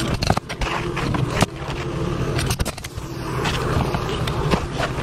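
Pneumatic coil roofing nailer firing nails into asphalt shingles: several sharp shots at irregular intervals, with scraping of shingles and gloves between them, over a steady low hum.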